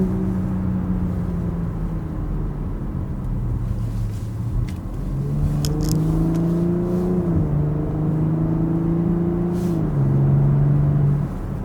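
BMW X5 xDrive50e's turbocharged straight-six running through a DCE Parts V2 exhaust with the valves open, a steady drone while driving. Its pitch drops in two steps in the second half, like upshifts.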